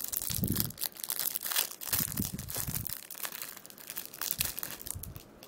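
Clear plastic wrapper of a trading-card pack crinkling and crackling as it is handled and torn open by hand, with a few dull bumps from the handling. The crackling is densest in the first few seconds, then thins out.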